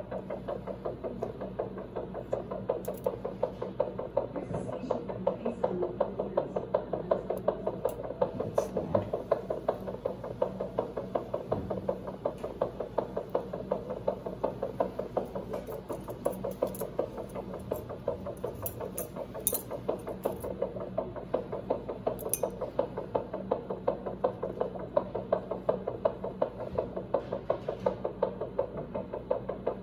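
Anesthetic heart monitor sounding a hamster's heartbeat as a fast, even pulse, about four beats a second, over a steady low electrical hum.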